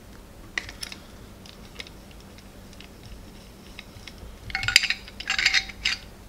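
Flaring tool being worked on copper tubing: a few faint clicks, then, from about four and a half seconds in, a run of metal-on-metal clinks and rattles as the tool's yoke and clamp bar are handled.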